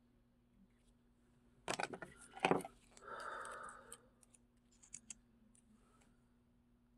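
Small objects being handled: a quick cluster of sharp clicks and rattles about two seconds in, then about a second of soft rubbing, and two faint clicks a little later.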